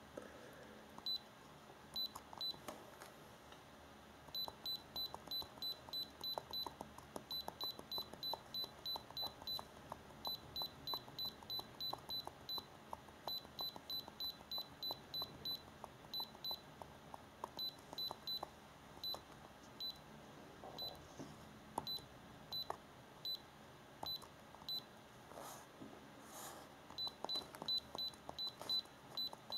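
The iCarsoft i930 handheld scanner beeps briefly and high-pitched each time its arrow key is pressed to scroll the module menu. The beeps come in quick runs of about three or four a second with short pauses, each with a faint click of the button.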